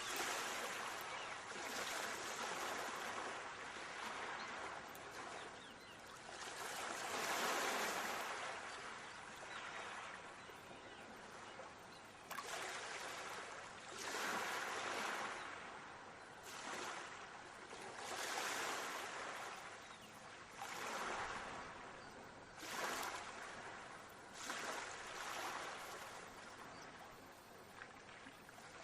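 Sea waves washing onto a shore, the rush of water swelling and fading every two to three seconds.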